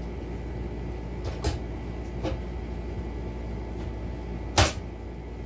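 Metal .50-cal ammo box knocking against the bike's rear rack as it is worked into place: a couple of light knocks, then one sharp, loud clank near the end, over a steady low hum.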